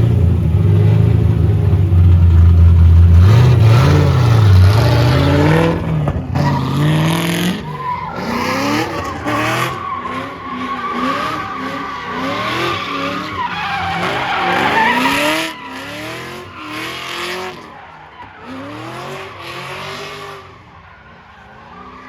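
Cadillac CTS-V's LS2 V8 revving hard while drifting, its pitch rising and falling over and over, with tyres squealing. The sound drops away after about 15 seconds as the car moves off.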